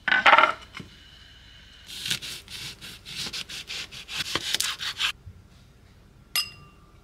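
A lemon is knocked down onto a granite countertop. Then a chef's knife saws back and forth through the lemon onto a wooden cutting board, about three seconds of quick rasping strokes. A single sharp click follows near the end.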